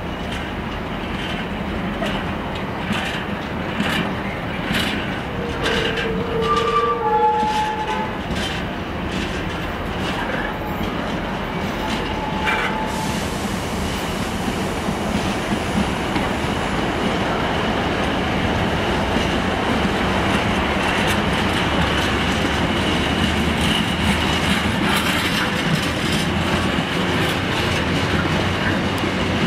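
Freight train of container flat wagons rolling past, its wheels clicking over rail joints, with a few brief squeals about six to eight seconds in. The rolling rumble grows steadily louder.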